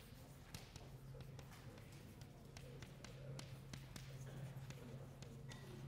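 Chalk on a chalkboard as an equation is written: a scatter of faint, sharp taps and scrapes over a steady low room hum.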